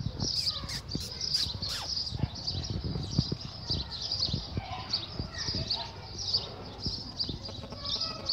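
Many small birds chirping continuously in the background, with irregular low thumps and five sharp clicks in the first two seconds.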